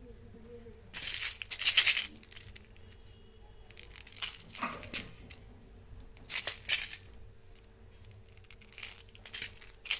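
Plastic candy tubes being handled in the hands, with crinkling and rustling in several short bursts, the loudest about a second in, over a faint steady hum.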